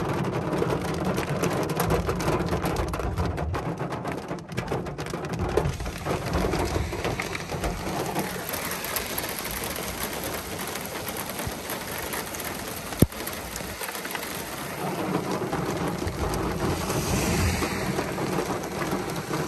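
Heavy monsoon rain pattering on a car's windshield and roof, heard from inside the car, with a low rumble of thunder through the first few seconds. A single sharp click sounds about two-thirds of the way through.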